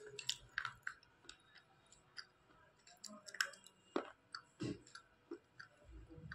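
Slate pencil being bitten and chewed: irregular sharp, crunchy clicks, with a few louder snaps near the middle.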